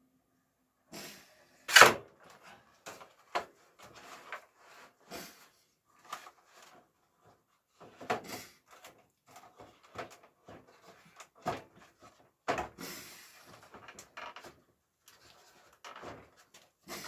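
Irregular wooden knocks and clatter of fir tongue-and-groove boards being handled and knocked together on a workbench during gluing, the loudest knock about two seconds in.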